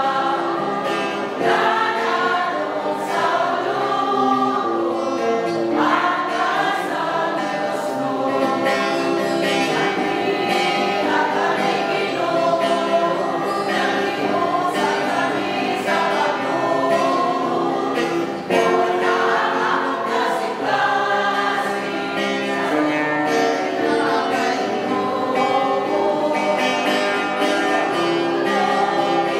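Choir singing a church hymn over steady instrumental accompaniment.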